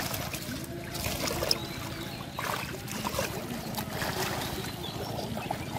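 Shallow river water sloshing and splashing as a man wades and works his hands and arms through water hyacinth, with a few louder splashes and a steady low hum underneath.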